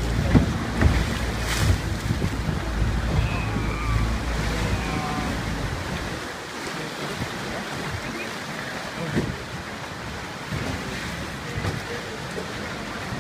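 Small open boat on choppy sea, with water splashing and wind rumbling on the microphone. The low rumble drops away about five seconds in as the boat enters a sea cave, leaving water sloshing against the rock and faint voices.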